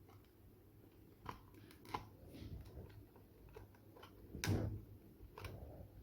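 Scattered sharp plastic clicks and knocks from a blood pressure monitor's casing being handled and prised open, with the loudest knock about four and a half seconds in.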